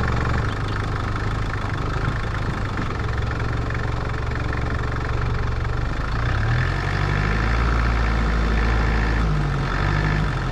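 Four-wheel-drive's engine running steadily, its note rising and shifting about six seconds in as the revs change.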